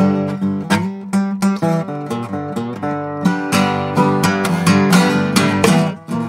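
Acoustic guitar playing an instrumental break between verses of a song, a quick run of picked notes and chords.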